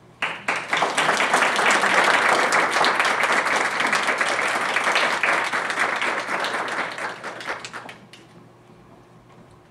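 Small audience applauding: clapping starts suddenly at the end of the music, holds steady for several seconds, then dies away near the end.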